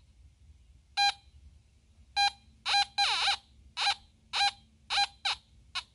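Teknetics G2+ metal detector giving a run of short beeps, all at the same pitch, about nine of them starting a second in, each time a 1945 Canadian Victory nickel is swept past its search coil.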